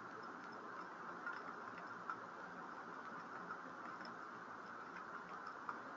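Faint computer keyboard typing: a few scattered key clicks over a steady background hiss.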